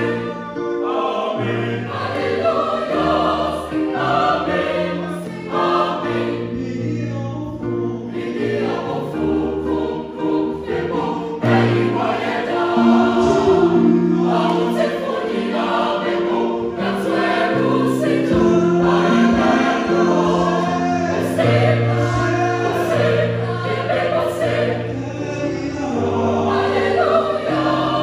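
Choir singing gospel music, many voices holding full chords that change every second or two.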